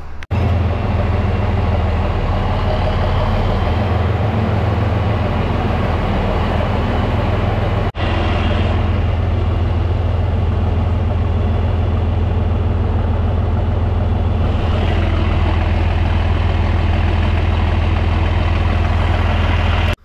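Diesel tractor engine running steadily under load while towing a field cultivator, with strong low engine tones. The sound breaks off briefly near the start and about 8 seconds in.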